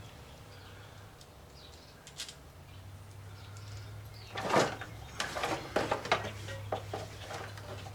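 Knocks and light irregular clicks of parts and tools being handled during engine work, with one louder knock about halfway through, over a steady low hum.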